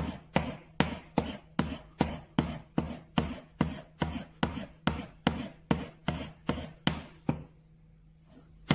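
A wide bench chisel stroked back and forth on a strop, a steady rhythm of rubbing strokes about two and a half a second, honing its edge. The strokes pause for about a second and a half near the end, then start again.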